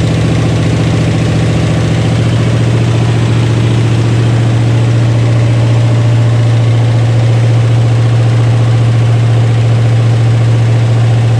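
Freshly rebuilt Mopar 318 V8 running on straight pipes during its first break-in run, holding a steady, even speed.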